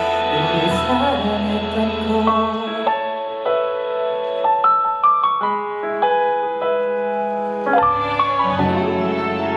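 Instrumental break in a slow ballad, without singing: a keyboard melody of separate, stepping notes, with the bass dropping out for a few seconds in the middle and coming back near the end.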